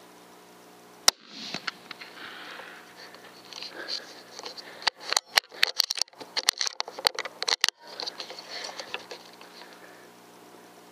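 A single sharp, loud crack about a second in from a Savage Axis II Precision .308 Win rifle firing, picked up by the scope's built-in microphone. It is followed by rustling handling noise and, from about five to eight seconds in, a quick run of sharp clicks and knocks from the rifle being handled.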